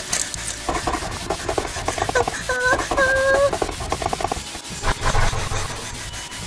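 A horse whinnying: one quavering call that starts about a second in and lasts about three seconds, dipping in pitch and then holding steady before it stops.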